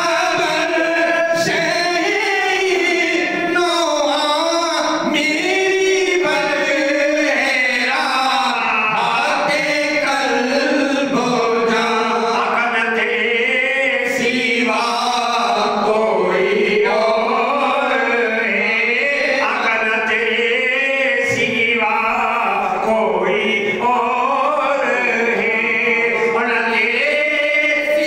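A man singing a naat, an Islamic devotional poem, into a handheld microphone in one continuous, unbroken stretch of song.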